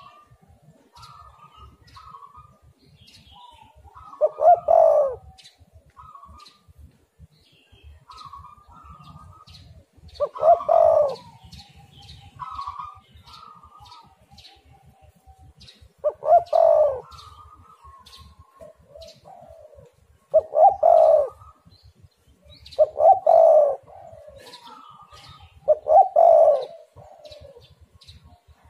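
Spotted dove cooing over and over: about seven loud coo phrases a few seconds apart, with softer coos between them and faint high chirps of small birds.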